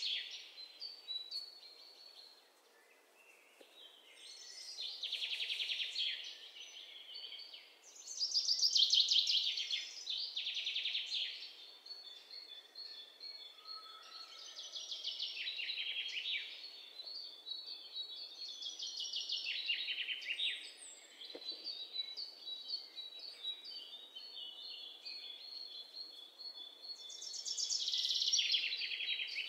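Birdsong: several birds chirping and trilling in overlapping phrases that come and go, some with rapid rattling trills and some with thin whistled notes.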